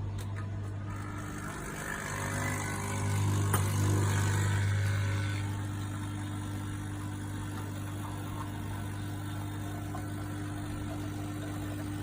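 Nespresso Essenza Mini coffee machine running, its pump giving a steady low buzzing hum. The hum swells with a hiss for a few seconds about two seconds in, then settles back to a steady drone.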